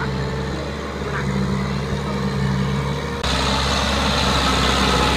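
Farm tractor's diesel engine running steadily under load as it works the muddy field, with a constant low hum. The sound jumps louder and fuller about three seconds in.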